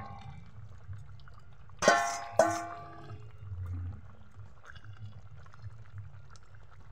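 Fish curry being stirred in a kadai with a flat metal spatula, the liquid sloshing. Two ringing metal clangs come about two seconds in, a half-second apart.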